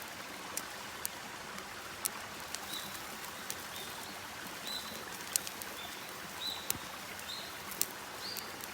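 Wood campfire crackling, with sharp irregular pops over a steady hiss. Short high chirps repeat through it.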